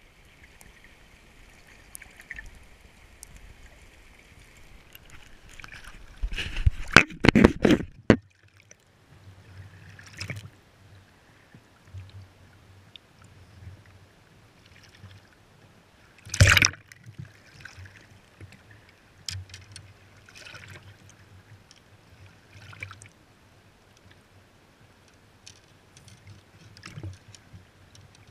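Shallow river water lapping and trickling over rocks close by, broken by loud splashing as a hooked jack coho salmon is landed and handled in the shallows: a dense run of splashes for about two seconds starting some six seconds in, and one single loud splash about sixteen seconds in.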